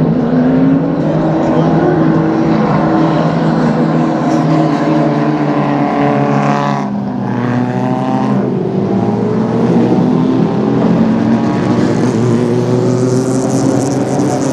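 Heritage Group A/Group C touring race car engine running hard on track. It revs up under full throttle, drops sharply about seven seconds in at a lift or gear change, then climbs again.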